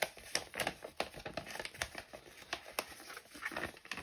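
Brown paper envelopes rustling and crinkling as they are handled and opened, a run of irregular sharp crackles.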